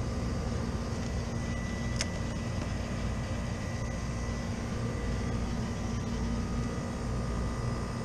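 Steady hum of running refrigeration condensing equipment, with a low rumble and faint steady tones, and a single sharp click about two seconds in.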